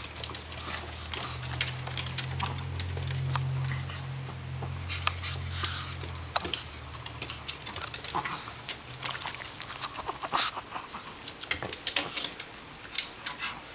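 Small dogs' claws clicking and pattering on a hardwood floor as they walk and scamper about, with scattered short ticks throughout. A low steady rumble runs under the first half and stops about six seconds in.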